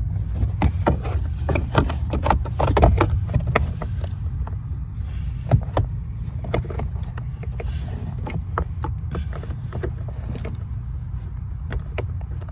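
Irregular clicks and light knocks of a car's blower motor and its fittings being handled and worked back into place under the dash, over a steady low rumble.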